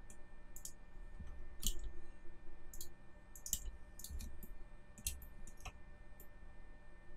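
Computer mouse clicks and keyboard key presses, about a dozen short sharp clicks at irregular intervals.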